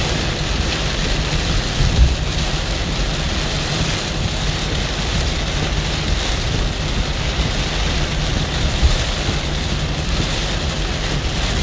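Heavy rain falling on a moving car, heard from inside the cabin as a steady hiss over the low rumble of the tyres and engine on the road. A brief thump about two seconds in.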